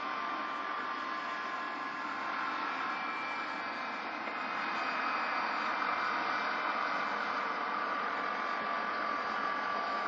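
Small gas turbine engine of a radio-controlled helicopter in flight: a steady high whine over a rushing hiss, getting slightly louder about halfway through.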